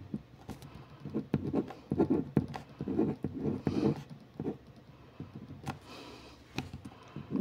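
Drawing on paper: irregular scratching strokes with scattered sharp taps, in a small room.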